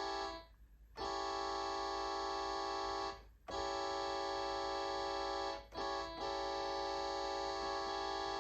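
Electronic keyboard playing a Nathan M5 train horn chord, the notes C sharp, E, G, A and C sharp held together in an organ-like tone. It sounds as long, steady horn-like blasts of about two seconds each, with short breaks between them.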